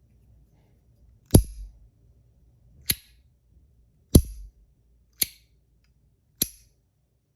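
Compoform Astronaut Coin, a metal slider fidget coin, being slid back and forth, each slide ending in a sharp metal click: five clicks about one to one and a half seconds apart, the first and third the loudest. A loud fidget, untaped.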